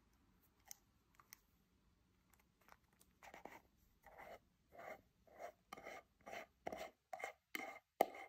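A Glock 17 blowback air pistol being handled: a couple of small clicks, then a run of short scraping strokes, about two a second, coming faster near the end.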